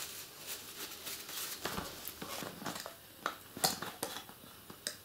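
Light handling noises: a paper tissue rustling and a scatter of small clicks and taps as small metal adhesive tins are picked up and handled, the sharpest clicks about three and a half seconds in.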